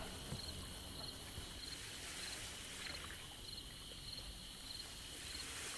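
An insect chirping in a steady rhythm, one short chirp about every two-thirds of a second, over a faint constant hiss of outdoor ambience.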